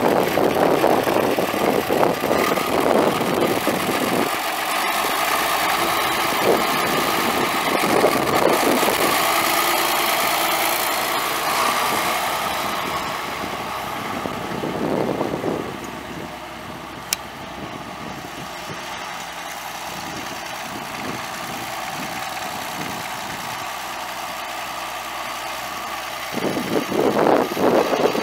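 John Deere 4430 tractor's six-cylinder turbo diesel engine running at idle, louder for the first four seconds and again near the end.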